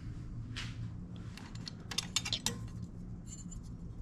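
Small scattered clicks and scratches from handling, with a quick run of clicks about two seconds in, over a steady low hum.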